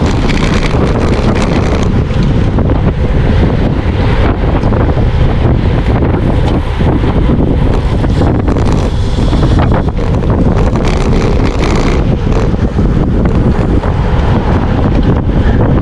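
Loud, steady wind rushing over the microphone of a camera carried on a road bike riding at race speed.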